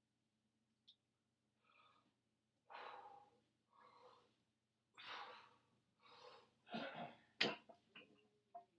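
A deadlifter's quick, forceful bracing breaths over the barbell before the pull, growing louder and closer together, with one sharp, loudest burst near the end.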